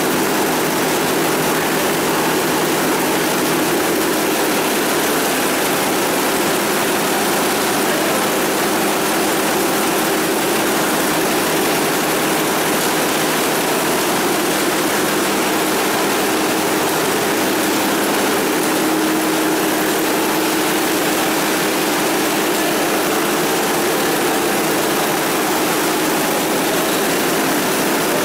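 Fish washing and processing line running: a loud, steady mechanical din from the washer and conveyor machinery, with a few steady hums under it.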